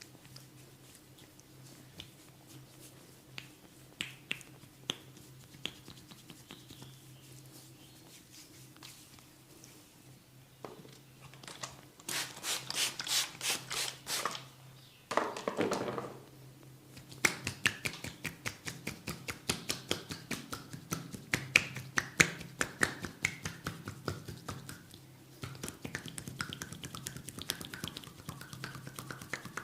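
A barber's hands working the head and neck in an Indian head massage: a few scattered faint clicks at first, then, from about halfway, long runs of quick crisp taps and snaps, with a short falling sound in among them. A low steady hum runs underneath.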